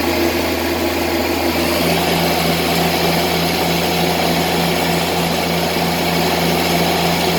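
Tractor engine running steadily, a continuous even drone.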